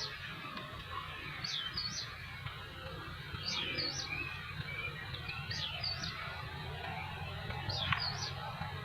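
A songbird repeating a short high phrase about every two seconds, each a quick downward-sliding whistle with a couple of brief high notes, over a steady low rumble.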